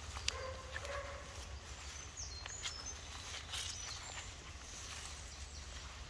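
Woodland ambience: a few short, high bird chirps about two to three seconds in, over a steady low rumble and scattered faint crackles.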